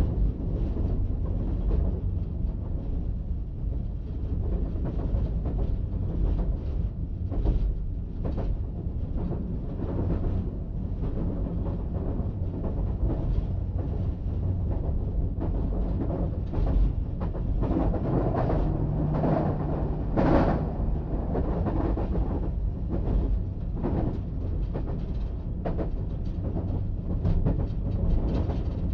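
Diesel multiple unit running at speed: a steady rumble with the clack of wheels over rail joints, louder for a few seconds about two-thirds of the way through.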